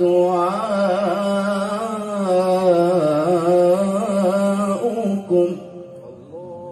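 A man reciting the Quran in the melodic tilawah style, drawing out a long vowel with wavering, ornamented turns of pitch. The voice drops away about five and a half seconds in, then starts a softer held note near the end.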